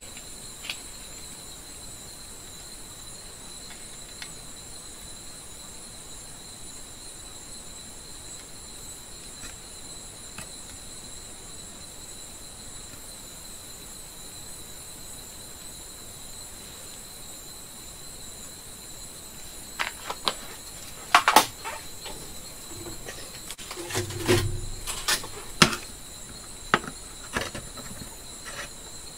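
Steady high-pitched trilling of crickets. In the second half it is broken by sharp clicks, knocks and a short low thump as wires and soldering tools are handled.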